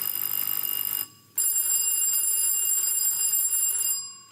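Contestants' quiz bells ringing in turn: a continuous high-pitched ring that cuts off about a second in, then after a short pause a second ring lasting about two and a half seconds.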